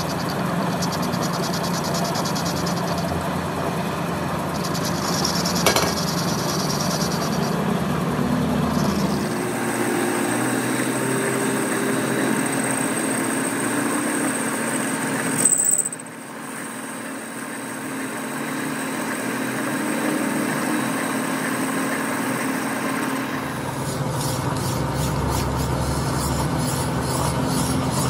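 Metal lathe running while a cutting tool turns down a steel shaft, a steady machine noise with the sound shifting abruptly a few times. In the last few seconds a hand file scrapes against the spinning work in quick, even strokes.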